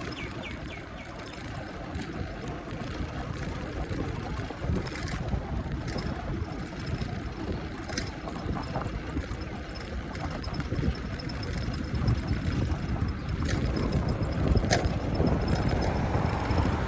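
Outdoor city ambience: a steady low rumble, louder toward the end, with a few sharp clicks.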